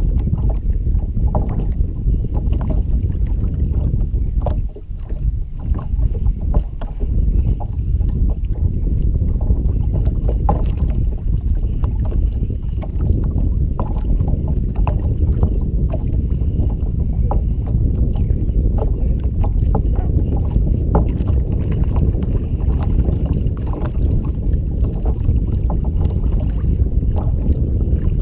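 Wind buffeting the microphone on an open kayak: a loud, steady low rumble, with small scattered clicks and taps.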